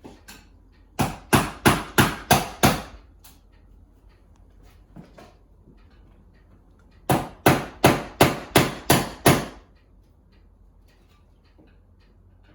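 Hammer blows in two quick runs, about six strikes and then about seven, roughly three a second, in hand work on an old wooden window.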